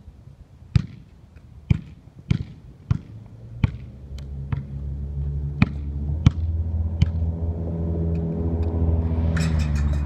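A basketball thudding on a concrete driveway and against the hoop, about ten sharp impacts spaced half a second to a second apart. From about four seconds in, a low droning hum rises underneath and grows steadily louder.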